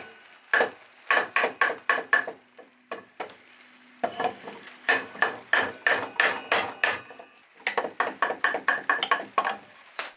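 Runs of short metallic clicks and clinks from hand tools working on a mitre saw's metal parts while its grub screws are undone.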